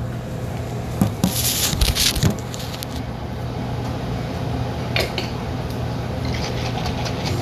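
Steady hum of a commercial kitchen exhaust hood fan, with a short clatter of pots and utensils being handled about a second in and a single knock about five seconds in.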